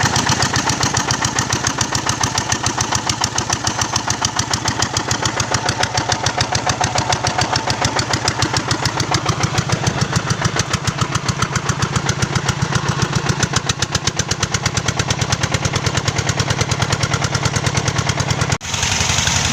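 A tin-mining rig's hand-cranked '48' engine running steadily with a fast, even pulsing beat, like a helicopter. The sound breaks off briefly near the end.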